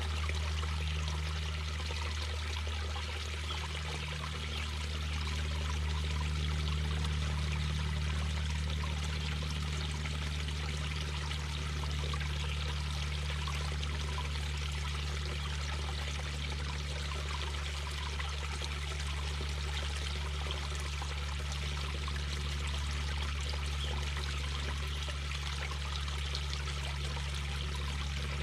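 Mountain brook babbling steadily over rocks, a continuous splashing rush with a steady low rumble underneath.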